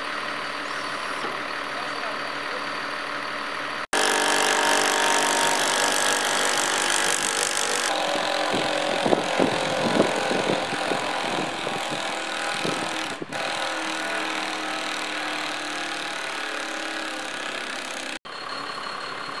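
Diesel engine of a truck-mounted crane running steadily, with faint voices. The sound changes abruptly a few times where shots are cut together, getting louder about four seconds in.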